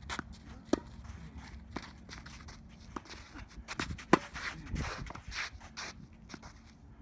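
Tennis ball being struck by rackets and bouncing on a hard court: sharp pops about a second apart, the loudest about four seconds in, with footsteps scuffing on the court.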